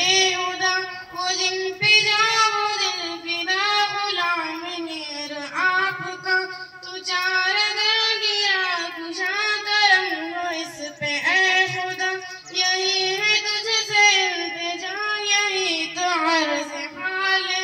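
A schoolgirl singing a hamd, a devotional song praising God, solo with no instruments, in long melodic phrases that bend and waver in pitch with short breaths between them.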